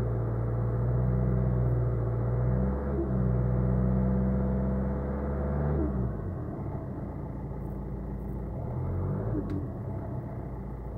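Renault Mégane III 1.5 dCi four-cylinder turbodiesel held at steady revs of about 1900–2000 rpm, with a steady whine over the engine note. The owner cannot explain the whine. About six seconds in, the revs fall away and the whine stops, leaving the engine running lower and less evenly.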